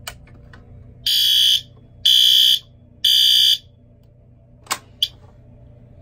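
Electronic fire alarm horn sounding three half-second blasts about a second apart: the temporal-three evacuation pattern, set off from a manual pull station. A click as the station is pulled comes just before, and two short clicks follow near the end.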